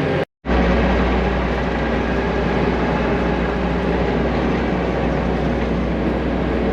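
Diesel engine of a skid steer running steadily with a low drone. The sound cuts out completely for a moment near the start, then the engine carries on evenly.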